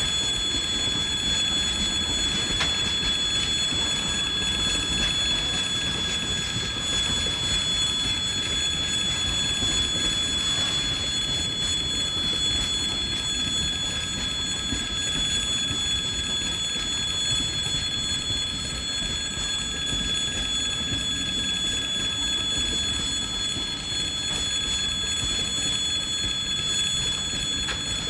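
Freight train wagons rolling past steadily, with a continuous high-pitched tone over the rumble of the wheels.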